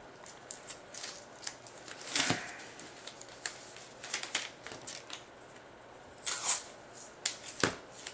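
Masking tape and a paper template being handled: scattered paper crackles and clicks, with two louder rasps of tape pulled off the roll about two seconds in and about six seconds in.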